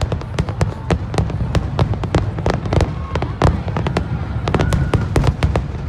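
Aerial fireworks finale: a dense, continuous barrage of shell bursts, several sharp bangs a second over a constant low rumble, with a few faint high whistles.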